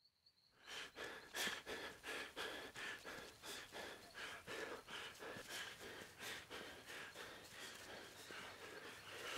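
Footsteps of several people moving quickly across grass, starting under a second in, with a quick, even rhythm of soft thuds.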